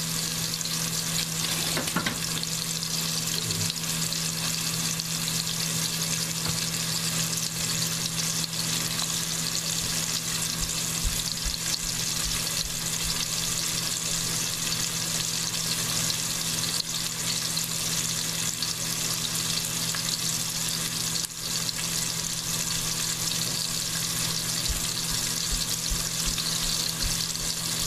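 Pork loin steaks sizzling in hot oil in a pot, a steady crackling fry as they brown.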